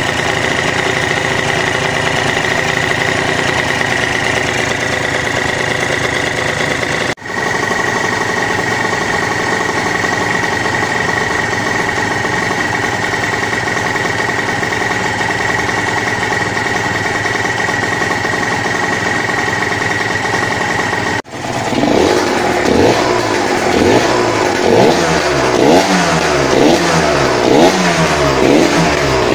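Yamaha TZM 150's single-cylinder two-stroke engine idling steadily, then, about two-thirds of the way in, revved in quick repeated blips of the throttle.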